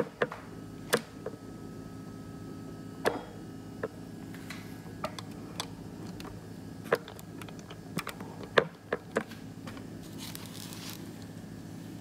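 About a dozen scattered light clicks and taps over a steady low hum, with a brief soft hiss near the end.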